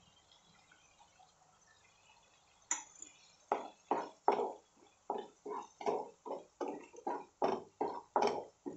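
A wooden spatula stirring thick gravy in a pan: a quick run of short, wet squelching strokes, about two or three a second, starting about three seconds in.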